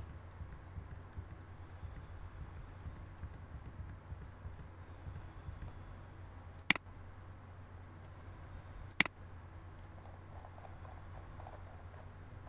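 Two sharp computer mouse clicks a little over two seconds apart, with a few faint small ticks in the first seconds, over a faint steady low hum.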